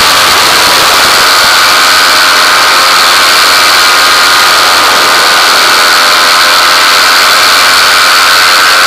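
A steady, loud engine drone with a high whine, unchanging in pitch or level.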